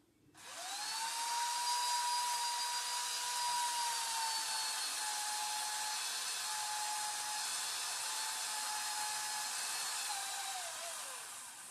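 Electric power tool motor spinning up to a high steady whine with a hiss, running for about ten seconds, then winding down as its pitch falls near the end.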